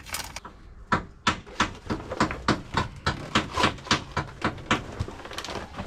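Hammer blows on rusted steel deck plating, chipping away rust, in a quick run of about three to four sharp strikes a second that starts about a second in.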